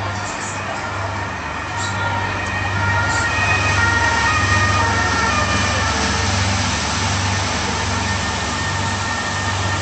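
Sightseeing boat's engine running with a deep, steady hum that swells a little about four seconds in, under a haze of noise and scattered short high calls.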